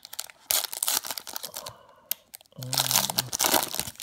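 Plastic wrapper of a Topps Series 2 baseball card hobby pack crinkling and tearing as it is ripped open by hand, in two bursts of about a second each.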